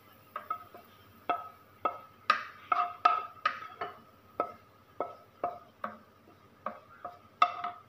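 Wooden spatula knocking and scraping against a nonstick wok while scooping diced carrot and pickled radish out of it, about two knocks a second, each with a brief ring from the pan.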